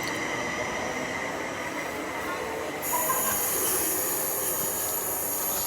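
Train moving through the station with a steady high-pitched whine over a rumble; a high hiss joins about three seconds in.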